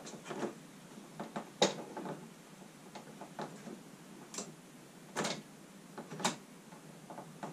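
Irregular clicks and light knocks from a plywood mock-up of a tilting trike's steering mechanism, its bolted pivots and metal brackets shifting as the bicycle wheel is steered back and forth by hand. The sharpest click comes about one and a half seconds in.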